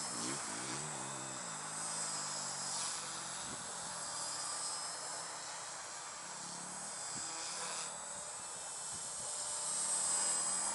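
Micro RC helicopter's brushless motor and rotors whining at a high pitch as it flies around. The whine swells and fades, growing louder near the end as it comes closer.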